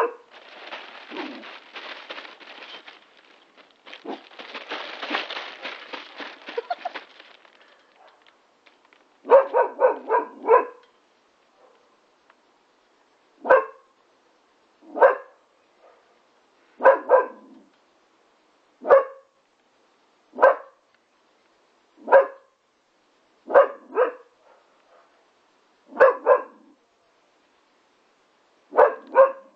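Young Labrador x Staffordshire bull terrier puppy barking: first a quick run of four barks, then single or double barks every second and a half to two seconds. The barks are preceded by several seconds of scuffling, rustling noise.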